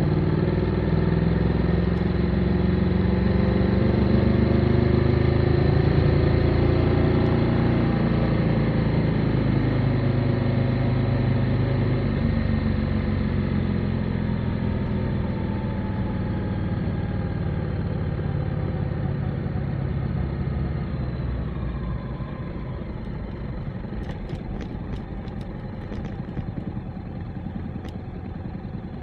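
Motorcycle engine under way. Its revs climb for the first few seconds, then drop away steadily as the bike slows, and it runs quieter and lower from about two-thirds of the way through, with a few light clicks near the end.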